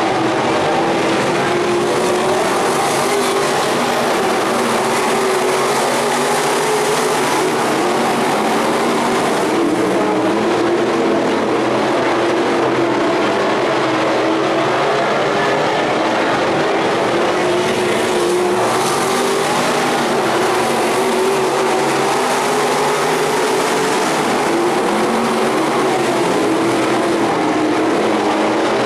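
Dirt-track sport modified race cars running around the clay oval, their V8 engines making a loud, steady drone with no sharp revving.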